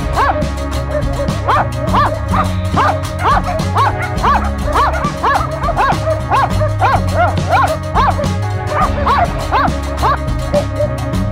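West Siberian laika hunting dogs barking in a fast, steady run of about two to three barks a second, the bay barking of dogs working a bear, with music underneath.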